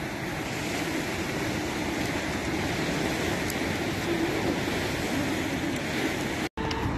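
Steady noise of choppy sea waves washing against a seawall. The sound cuts out for a split second near the end.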